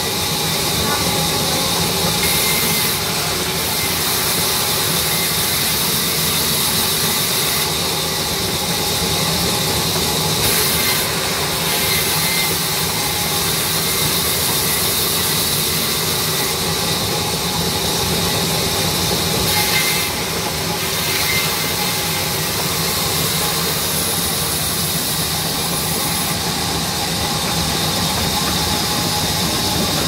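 Sawmill band saw running steadily, its blade ripping a log lengthwise into planks: a continuous loud machine hiss with a steady hum underneath.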